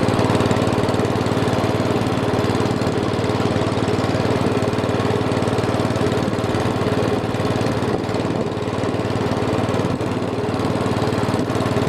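Single-cylinder engine of a 1967 John Deere 110 garden tractor running steadily as it drives slowly, with a John Deere Model 20 compressor attachment pumping up its tank, and wind on the microphone.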